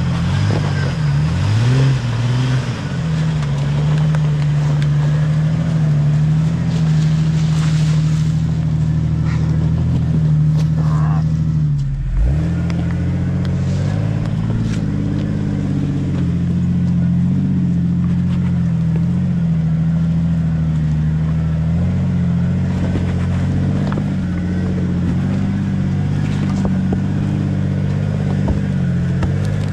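Jeep Wrangler engine running at low, fairly steady revs. Its pitch rises and falls a few times in the first seconds, then it breaks off briefly about twelve seconds in and settles at a slightly higher steady note.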